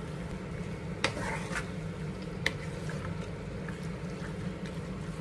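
Pork and vegetable stir-fry sizzling steadily in a frying pan while a wooden spatula stirs it, with a few light knocks of the spatula against the pan.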